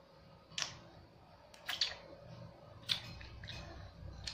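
Chopsticks clicking against a glass bowl while noodles are eaten from it: a few short, sharp clicks about a second apart, one of them doubled.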